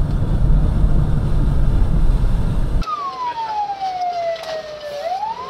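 Fire truck driving through deep floodwater: a loud low rumble of engine and churning water. About three seconds in, this cuts off and an emergency vehicle siren wails slowly, falling in pitch for about two seconds, then starting to rise again near the end.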